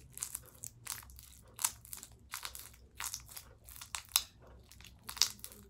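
Homemade shaving-cream slime being squeezed and stretched by hand, making irregular sticky crackling and popping sounds, several a second.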